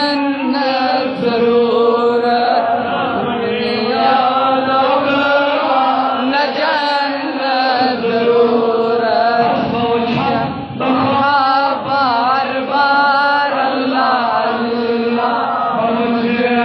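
A man chanting a Kashmiri naat solo through a microphone, a long, wavering melody with ornamented held notes, over a steady low drone.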